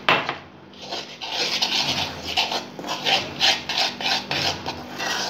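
A spoon scraping against a metal bowl as it stirs wheat flour, gram flour and water into a batter: a knock at the start, then rhythmic scraping strokes about three a second.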